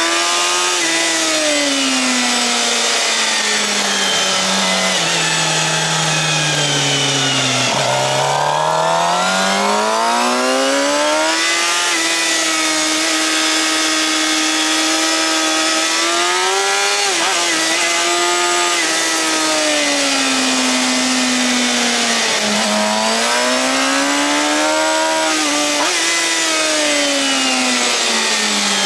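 Suzuki GSX-R750's inline-four engine through a Yoshimura R-11 slip-on exhaust at racing revs. Its note falls away over several seconds as the bike slows for a corner, bottoming out about seven seconds in. It then climbs back and holds high, with brief dips at gear changes and more falls and rises into later corners. Steady wind rush runs underneath.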